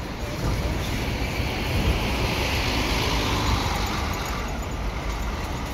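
Gontijo Marcopolo Paradiso G7 1200 intercity coach driving slowly past at close range, its engine rumbling under a rising then fading hiss. It is loudest in the middle and eases as the coach moves away.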